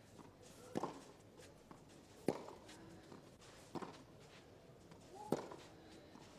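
Tennis ball struck back and forth by rackets in a baseline rally: four sharp hits, evenly spaced about a second and a half apart.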